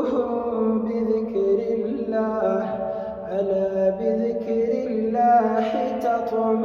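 A man's voice reciting the Quran in the melodic, drawn-out tajweed style, holding long notes that step between pitches with ornamented turns.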